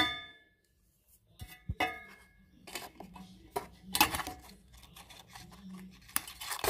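Cutting the flat lead wires of a paper-cone loudspeaker and handling its frame. A sharp click rings briefly at the start, then after a short pause come scattered clicks, snips and scrapes.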